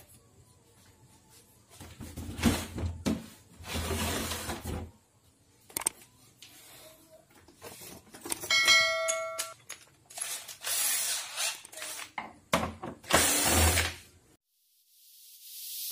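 Cordless drill-driver running in several short bursts, backing out the screws of a CRT television's plastic back cover. A short bell-like chime sounds about halfway through.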